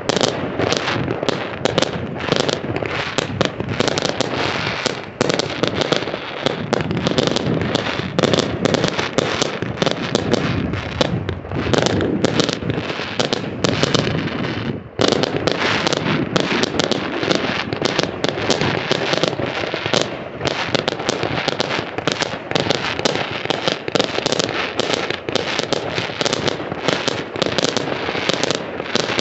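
Fireworks display: a dense, continuous barrage of bangs in rapid succession with hardly a break.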